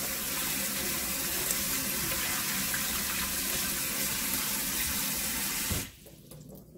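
Kitchen tap water pouring into a stainless steel pot of blanched chwinamul while a hand swishes the greens through the water, the third and final rinse. The running water cuts off suddenly near the end.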